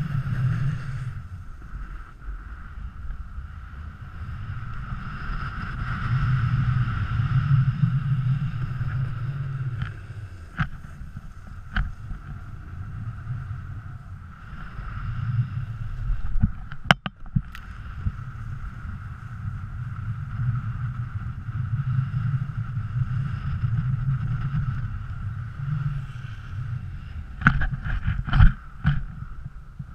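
Snowboard sliding and carving over packed snow: a continuous rumbling scrape that swells and fades with the turns, mixed with wind on the microphone. A sharp knock about halfway through and a quick run of knocks near the end.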